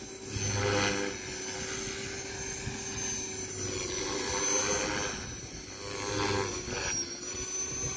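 A radio-controlled helicopter in flight: a steady drone from its rotor with a high, wavering whine from the motor and drivetrain. The rotor noise swells and fades several times as it swoops through aerobatic manoeuvres.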